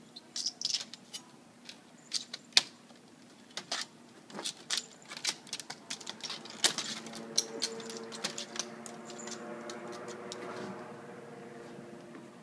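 An Oriental cat's claws clicking and scratching on a lattice fence as it climbs up it, in many quick, irregular taps. In the second half a low hum swells and then fades.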